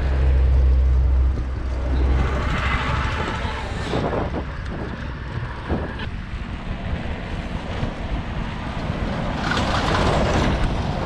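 A truck's engine rumbling close by for about the first second as the bicycle passes it, then steady wind and road noise from riding along a highway with traffic; the wind noise grows louder near the end.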